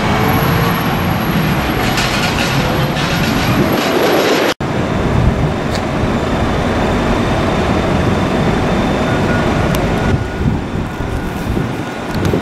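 Heavy diesel trucks, container trucks and tractor units, running and passing close by on a port road: a loud, steady engine and tyre rumble. It breaks off for an instant about four and a half seconds in.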